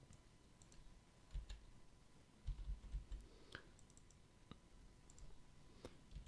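Faint computer mouse clicks and keyboard key presses, a scattered handful of short clicks with a few soft low thumps, against near-silent room tone.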